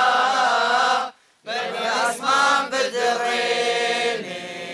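A group of Peshmerga trainees singing a Kurdish party song together in unison. The singing pauses briefly for breath a little after a second in, then carries on more quietly toward the end.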